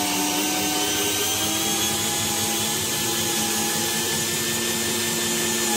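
Bosch GSB 120-LI 12 V cordless drill/driver running under load, driving a long screw into wood without a pilot hole: a steady motor and gearbox whine whose pitch sags slightly at the start, with a lower hum joining about a second and a half in.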